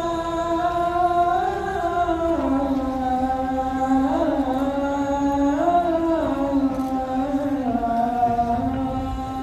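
A muezzin's voice singing the adhan, the Islamic call to prayer, in one long drawn-out melismatic phrase. The held note steps lower and rises again in slow turns, ending lower than it began.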